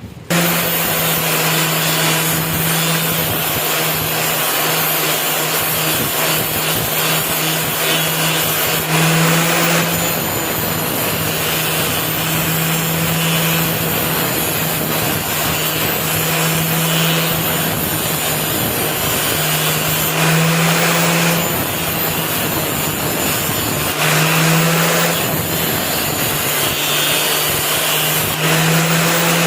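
Electric grinding tool switched on and running steadily, a constant motor hum under a loud grinding hiss as it works the steel of a rusty knife blade. It gets louder for a moment several times.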